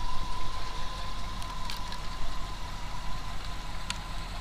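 Pickup truck engine idling steadily, with a thin steady whine running alongside and two brief clicks.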